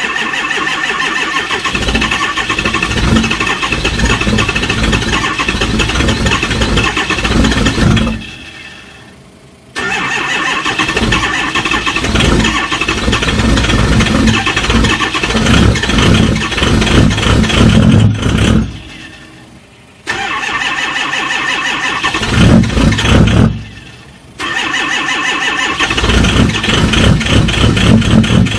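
Cold engines cranking over and catching, in several separate starts cut together. The sound breaks off three times and comes back at full strength.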